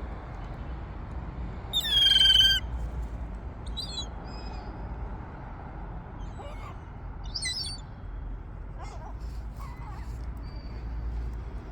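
Seagulls calling: one loud call about two seconds in, then several fainter, shorter calls.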